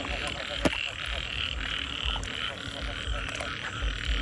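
Frogs croaking in a chorus, many short calls repeating over a steady high-pitched buzz, with one knock under a second in.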